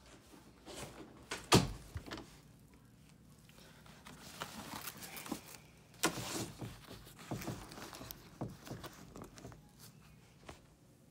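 Handling noise and rustling as the phone is carried about and things in a closet are moved, with scattered knocks; the loudest is a sharp knock about a second and a half in, another about six seconds in.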